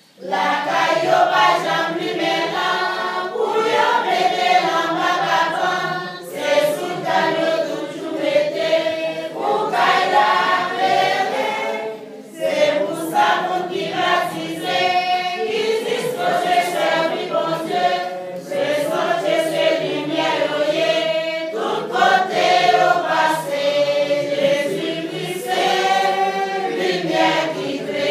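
A congregation singing a hymn together, many voices at once, for the lighting of the candles in a baptism service, with two short breaks between phrases.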